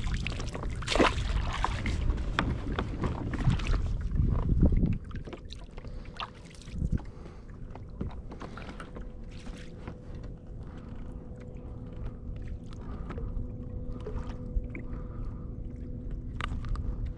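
A motorboat's engine hums steadily as the boat approaches, slowly growing louder through the second half. Over it come small clicks and knocks from hands handling a fish and tackle, with louder rustling and wind on the microphone that drops away about five seconds in.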